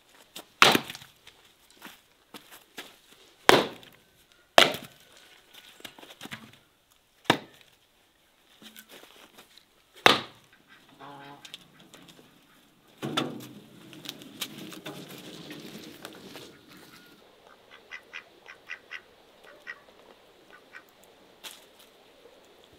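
Domestic geese honking and fowl calling after a run of five loud, sharp knocks a few seconds apart. Light quick taps come near the end.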